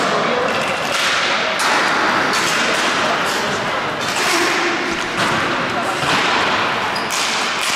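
Sounds of roller hockey play on a sports-hall court: a loud rushing noise that swells and falls every second or so.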